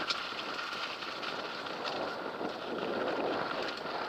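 A mountain bike rolling over a rocky trail, heard from a camera on the bike or rider: wind rushing over the microphone, with scattered rattles and knocks from the bumps.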